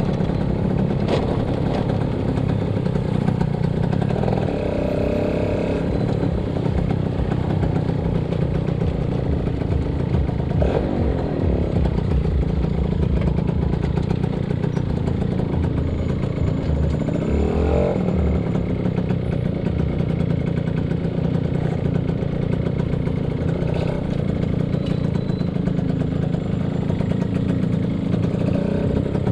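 Yamaha SS motorcycle engine running steadily while being ridden, with continuous road and wind noise. Two brief wavering changes in pitch come a little before the middle and a little after it.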